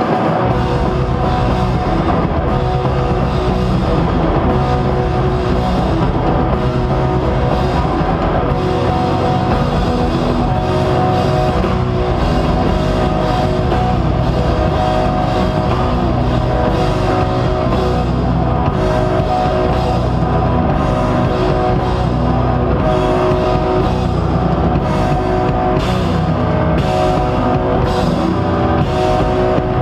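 Live instrumental post-rock band playing loud. Electric guitars and bass hold sustained, layered chords over a steady drum-kit beat, and the drum and cymbal hits stand out more in the last few seconds.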